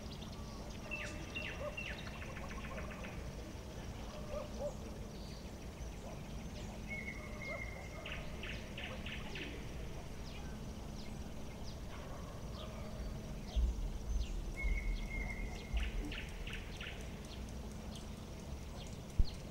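A bird calling three times over a steady low hum. Each call is a short held whistle that runs into a quick series of notes. A low rumble swells about two-thirds of the way through, and a single sharp knock comes near the end.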